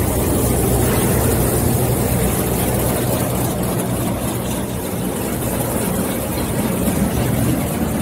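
Potato washing and peeling machine and its conveyor running: a steady motor hum with constant mechanical noise from the potatoes turning in the machine.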